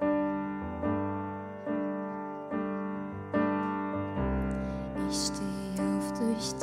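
Digital piano playing slow worship chords, a new chord struck a little under every second, with a low bass note joining about four seconds in. A woman's voice starts singing near the end.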